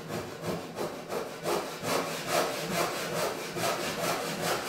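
Back saw cutting across a planed construction-lumber board to saw a tenon shoulder, in quick, even back-and-forth strokes.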